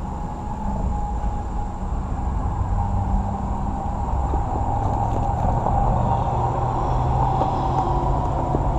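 Steady low rumble of vehicle traffic, slowly growing louder, with a faint steady hum in it.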